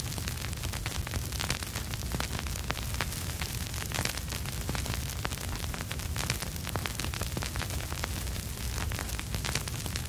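Vinyl record surface noise: a steady hiss thick with small irregular crackles and pops, over a constant low rumble, with no music.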